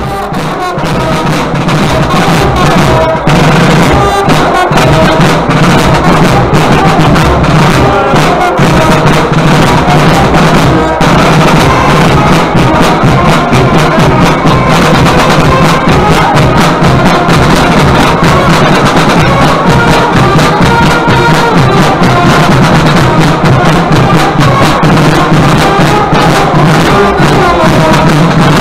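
Live brass and drum band playing loudly: drums beaten hard under trumpets and trombone.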